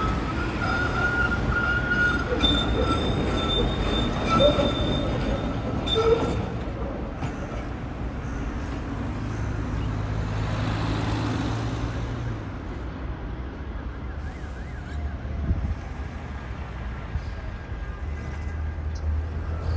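Tram wheels squealing on the rails in a high, steady tone for about the first six seconds, over street traffic. After that, cars and engines pass with a steady traffic hum.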